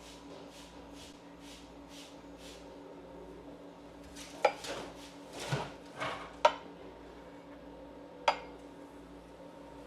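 Cups and coffee gear clinking: a few sharp clinks and some clatter of ceramic and metal kitchenware near the middle, over the espresso machine's low steady hum.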